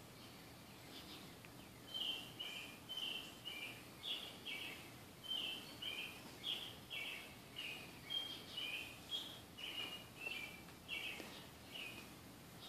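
A bird chirping, a faint steady series of short two-note chirps at about two a second, starting about two seconds in.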